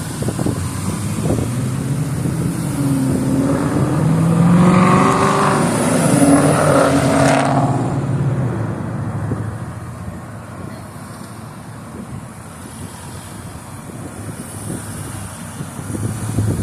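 A road vehicle passing by: engine and tyre noise swell to a peak about five to seven seconds in, then fade away, over gusty wind rumbling on the microphone.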